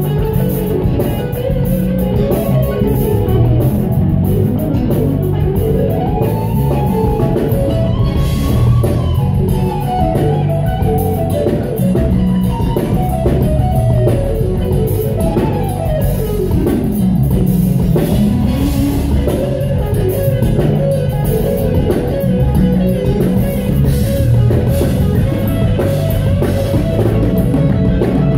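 A live band playing a soul song: drums, bass and guitars, with a lead melody line gliding up and down over them.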